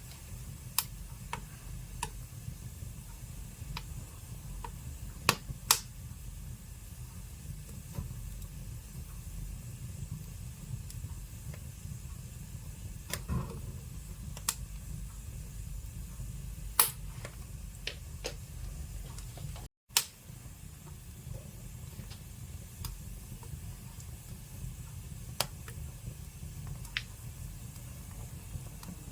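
Wood fire crackling in a fireplace: scattered sharp pops and snaps over a low, steady rumble of the burning fire. The sound drops out completely for a moment about two-thirds of the way through.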